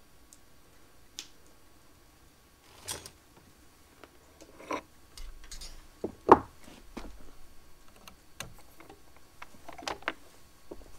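Handling noise: scattered light clicks and knocks, the loudest a single sharp knock about six seconds in, with no machine running.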